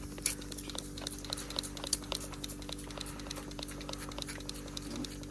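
Scattered raindrops ticking irregularly on a hard surface, over the steady hum of a running mini-split outdoor unit.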